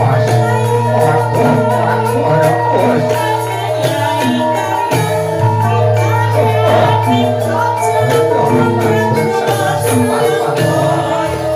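Javanese gamelan music accompanying a jathilan horse dance: metal percussion strikes ringing notes in a steady pattern over long, deep sustained tones, with a voice singing along.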